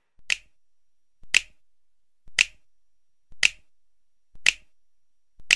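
Six sharp snap-like clicks, evenly spaced about a second apart, each preceded by a softer tick, in steady rhythm over near silence.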